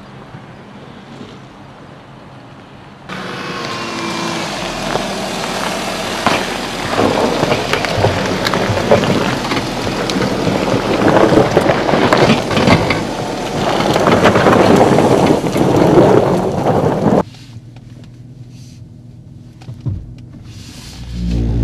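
Volkswagen Touareg SUV crawling over loose gravel, loud and close: tyres crunching and popping stones, with the engine pulling under load. It starts suddenly about three seconds in after a low engine hum and cuts off abruptly near the end, leaving a low hum.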